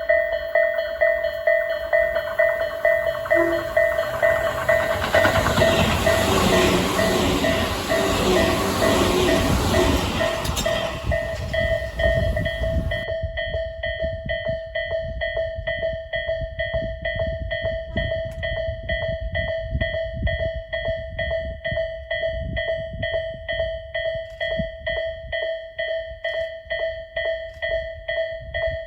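Japanese level-crossing bell ringing steadily with quick repeated strikes while a Tobu 8000 series electric train passes over the crossing, its wheels and running gear rushing loudest from about five to thirteen seconds in before the noise cuts off. After that the crossing bell rings on alone.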